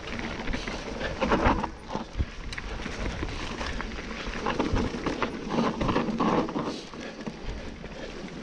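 Mountain bike riding down a dirt singletrack over leaf litter: tyre noise on dirt and leaves with the bike rattling and knocking over bumps, and a low wind rumble on the microphone. The rattling gets louder about a second in and again around five to six and a half seconds.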